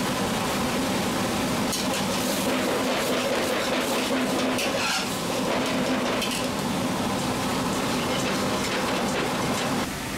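Steady kitchen noise from a gas burner and extractor fan, with chicken pieces frying in an aluminium pot and a metal ladle clinking against the pot as they are stirred. The level drops a little near the end.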